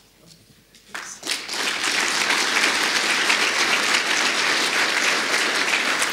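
Audience applause that breaks out about a second in and goes on steadily. Before it there are only a few faint clicks.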